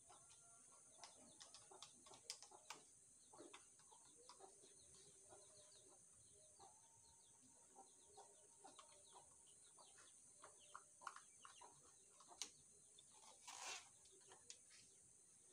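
Near silence with faint small clicks and taps of air-rifle parts and a screwdriver being handled, over faint bird chirps and a steady high hiss. A brief scraping rustle, the loudest sound, comes near the end.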